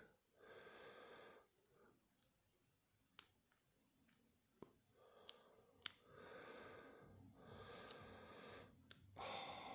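Sharp, scattered metallic clicks of a lock pick working the pins of a Federal padlock under a tension bar, the picker feeling for the pins after losing track of the set, with soft breathing between the clicks.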